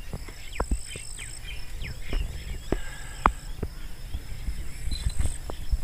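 Outdoor ambience by the water: an insect's high, steady trill that comes and goes in spells of a second or two, with short bird chirps, scattered clicks and a low rumble underneath.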